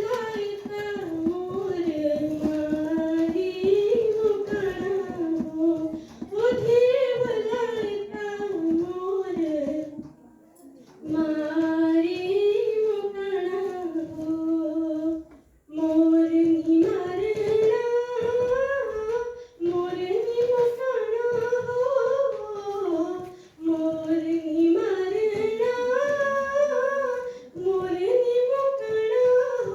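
A girl singing a Pahadi folk song solo and unaccompanied, in a high voice, in sung phrases separated by short breaths.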